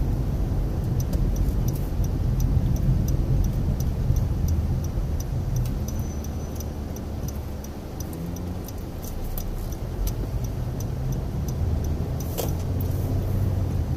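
Car engine and tyre noise heard from inside the cabin, with a regular light ticking through most of it. The sound drops briefly about halfway through, and there is a single sharp click near the end.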